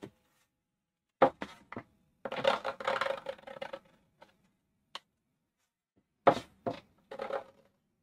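A plastic card pressed onto watercolour paper and dragged in short strokes to scrape wet paint away. There are sharp knocks followed by scraping, in two main bursts a few seconds apart, with a few single clicks between them.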